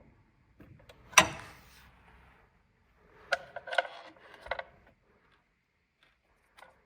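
Handling noises: a sharp clack about a second in, then a quick run of clicks and rattles a couple of seconds later, and one faint click near the end.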